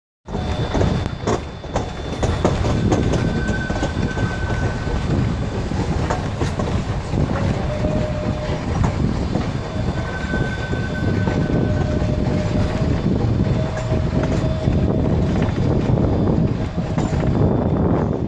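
Steam train with passenger coaches running past at a distance: a steady rumble with scattered clicks, heavily mixed with wind buffeting the microphone. A few thin, drawn-out tones come and go in the middle.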